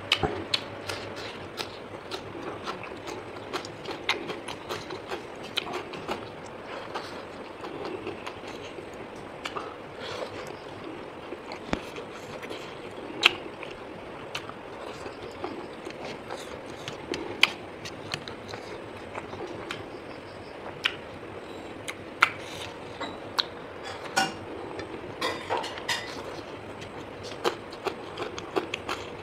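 A person eating close to the microphone: chewing and crunching mutton small intestine with raw onion and cucumber. It comes through as a string of irregular sharp clicks and smacks, a few of them much louder.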